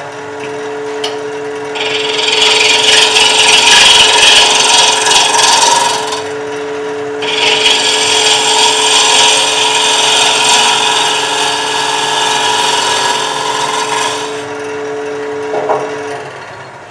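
Wood lathe running with a steady hum while a bowl gouge faces off the spinning bowl blank. There are two spells of rough cutting noise with a short pause between them, about six seconds in. The cutting stops and the lathe's hum ends near the end.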